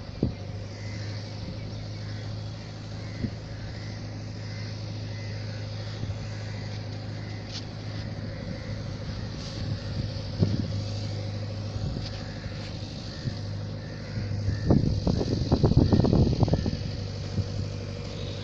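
Electric brushless motor and propeller of a small coroplast RC plane buzzing faintly as it flies overhead, over a steady low engine hum. A burst of wind rumbling on the microphone comes about three-quarters of the way in.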